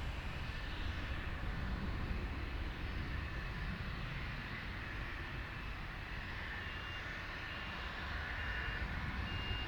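Steady jet engine noise with a high whine over a low rumble. About two-thirds of the way in, a vehicle's reversing beeper starts, beeping about once a second.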